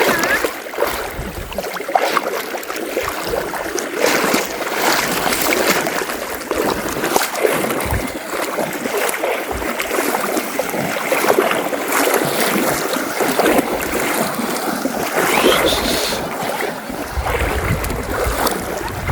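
River water rushing and splashing around people's legs as they wade across the river, with many small irregular splashes over a steady rush.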